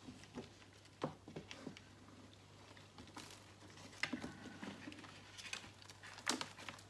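Cardboard egg-carton pieces and a potted plant being set into a plastic tub: scattered light rustles and taps, with louder knocks about a second, four seconds and six seconds in.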